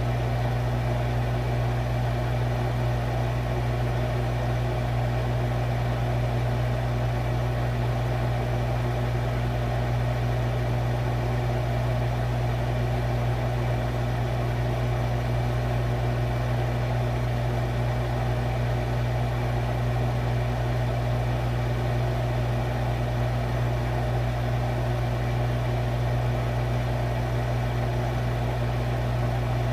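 Refrigerator running with a steady low hum that stays unchanged throughout, as heard from inside the fridge.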